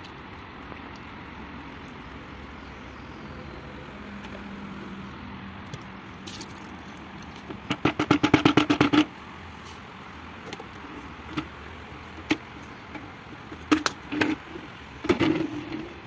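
Plastic parts of a wet/dry vacuum cleaner being handled with its motor off: a fast rattle of clicks lasting about a second near the middle, then a few separate clicks and knocks, with a short cluster near the end.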